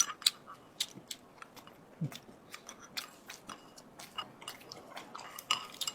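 People eating at a table: chewing, with scattered light clicks and taps throughout.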